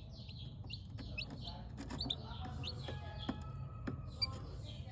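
Several domestic chicken chicks peeping: many short, high chirps falling in pitch and overlapping one another, with a few sharp clicks among them and a steady low rumble underneath.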